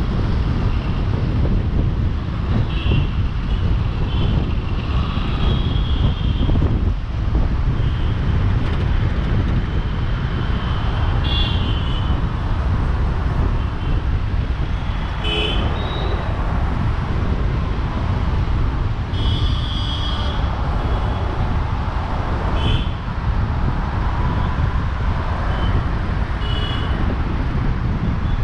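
Road traffic heard from a moving car: a steady low rumble of engine and road noise, with short vehicle horn honks from surrounding traffic again and again, the longest about two-thirds of the way through.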